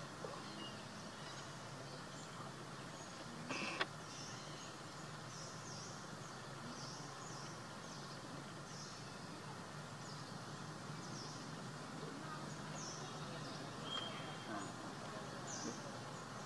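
Outdoor ambience: a steady background hiss with short, high chirps repeating roughly once a second, and one brief sharp sound about three and a half seconds in.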